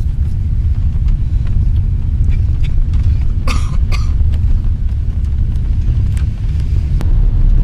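Loud, steady low rumble, with a short double cough about three and a half seconds in.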